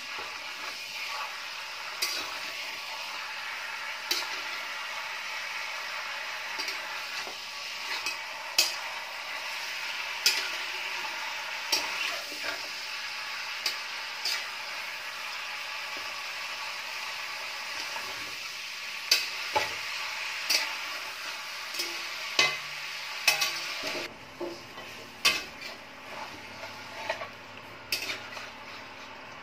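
Chicken pieces sizzling as they fry in hot oil in a kadai over a high flame, while a metal spatula scrapes and clinks against the pan as the pieces are turned. The sizzle eases about three-quarters of the way through, and the spatula knocks come more often near the end.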